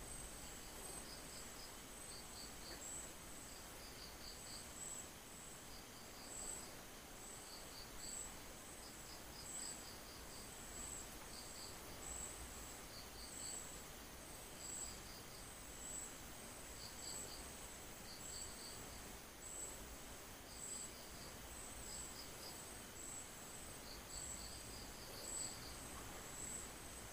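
Faint insect chirping: a steady high trill, with a second, lower chirp of a few quick pulses repeating about once a second.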